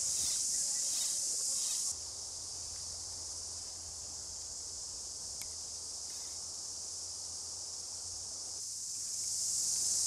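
Chorus of cicadas singing, a steady high-pitched buzz. It drops a little about two seconds in and swells again near the end.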